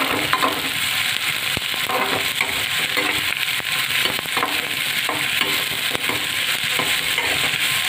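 Chopped onions sizzling in hot oil in a metal kadai, stirred with a spatula in repeated strokes that scrape and clink against the pan over a steady hiss.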